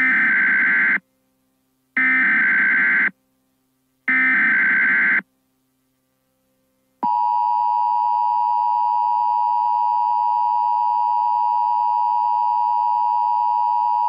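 Emergency Alert System tones: three one-second bursts of SAME header data, a harsh digital screech, about a second apart, then the steady two-tone EAS attention signal starting about halfway through. Together they announce an emergency alert, here a tornado warning.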